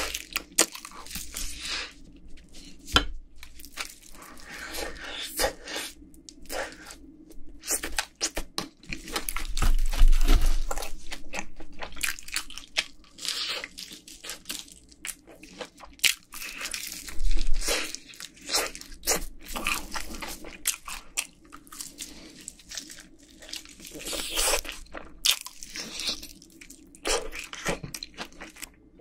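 Close-miked crunching and chewing of sauced Korean fried chicken, the crisp coating crackling with each bite, bitten from pieces held in the hand. Twice there is a louder, dull thump.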